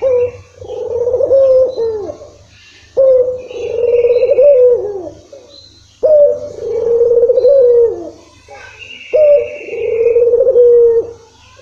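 Puter (Barbary dove) cooing: four long, rolling coos about three seconds apart, each lasting about two seconds.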